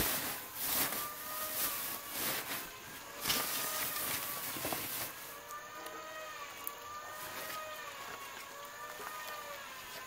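Dry grass rustling and crackling as hands spread and press it into a styrofoam box, busiest in the first half. A steady, slowly wavering hum runs underneath.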